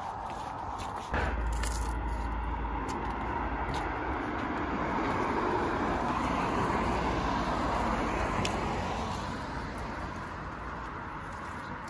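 A car passing on the road, its tyre and engine noise swelling over several seconds and then fading, with wind rumbling on the microphone from about a second in.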